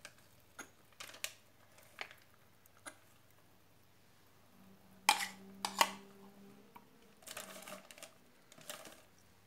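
Metal spoon scraping and tapping against a glass mixing bowl while thick pancake batter is scraped out into a plastic container. Scattered light clicks, two louder knocks about five to six seconds in, and short scraping sounds near the end.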